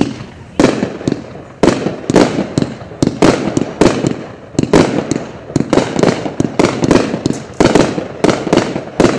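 Sweet Spot 30-shot, 500-gram fireworks cake firing shot after shot: sharp reports of launching and bursting shells, about two a second, each trailing off briefly.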